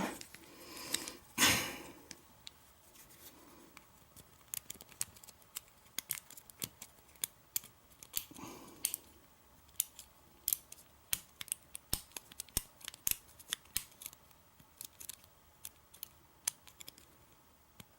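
Lock picking on a Kwikset KW1-keyway lock: irregular small metallic clicks and scrapes as the pick sets the pin tumblers under tension, with a louder knock near the start.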